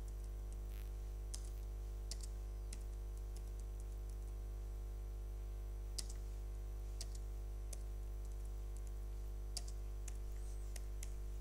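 Computer keyboard keystrokes, a dozen or so scattered irregular clicks, as a short line of text is typed. A steady low hum runs underneath.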